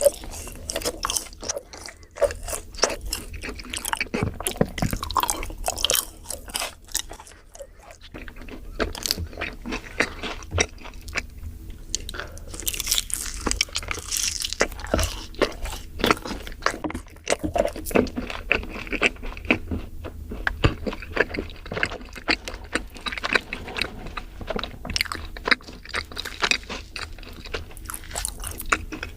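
Close-miked chewing and crunching of yakgwa, the fried, honey-soaked Korean cookie: a dense, irregular run of crunches and wet mouth clicks, with bites now and then.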